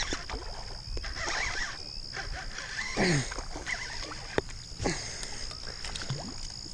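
Baitcasting reel being cranked and handled while fighting a hooked fish, with scattered clicks, over a steady high insect drone. A few short low tones falling in pitch sound about three, five and six seconds in, the first the loudest.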